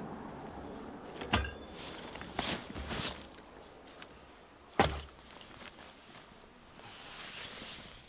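Camping gear being unpacked from a backpack and handled on a wooden deck: a few dull thumps, the loudest just under five seconds in, among soft handling noises.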